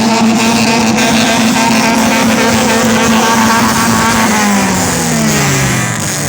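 Honda Civic engine revved and held at high revs at full throttle, then falling in pitch as the throttle is let off near the end.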